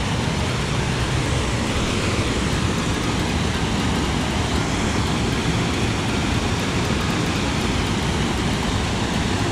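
Rushing water of a small river cascade tumbling over rocks close by: a steady, even rush of whitewater.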